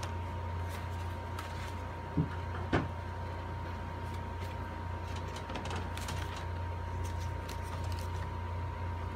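Cardstock paper petals being handled and pressed into place: light rustling and tapping, with two short thumps a little over two seconds in. A steady low hum with a faint high tone runs underneath.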